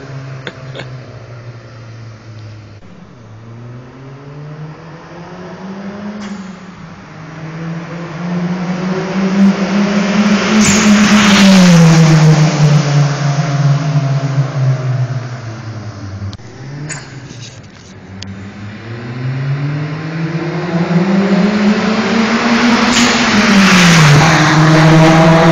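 Turbocharged Toyota Starlet Glanza accelerating past twice. Each time its engine note climbs as it comes closer, peaks with a rush of noise as it goes by, then drops sharply in pitch.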